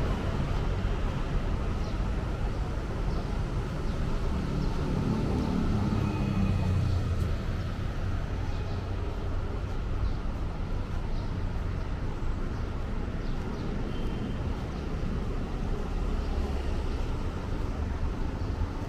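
Steady street traffic noise from vehicles, with a nearby engine rumble that swells around five to seven seconds in.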